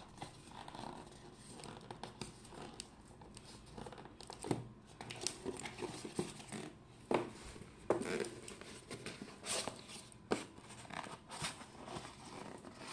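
Earbud packaging being handled: plastic and cardboard rustling and crinkling, with scattered small clicks and knocks.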